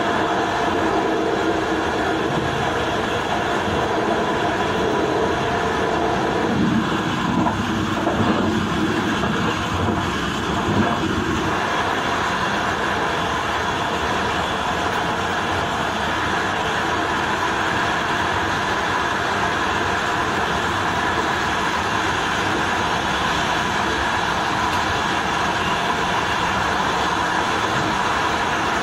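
Electric train running steadily along the track, heard from the front cab: a continuous rumble of wheels on rails with a steady hum over it, and a few louder rough rumbles about six to eleven seconds in.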